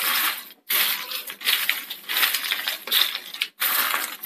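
Crisp fried tapioca chips crunching, rustling and clinking against a plate as a hand tosses them, in uneven bursts. The sound drops out briefly twice.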